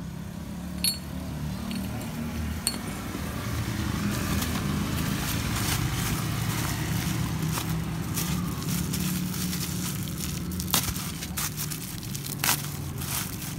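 Small metal parts clinking and tapping as they are handled, with a few sharp clicks early and a run of louder clicks near the end, over a steady low hum.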